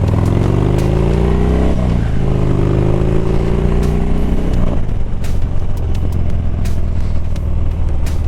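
Harley-Davidson Dyna Street Bob's V-twin engine accelerating through the gears: the pitch rises, drops at a shift just under two seconds in, and rises again. About five seconds in it settles into a steady cruise.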